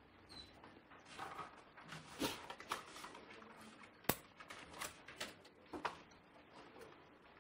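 Faint rustling and scattered small clicks and knocks of people handling paper and pens at desks, with one sharper click about four seconds in.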